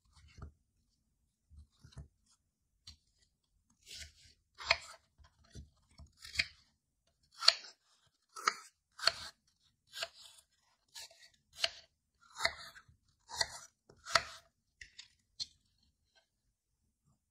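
Kitchen knife cutting through a peeled apple onto a wooden chopping board: a string of crisp crunching cuts, about one or two a second, starting a few seconds in after a little quiet handling.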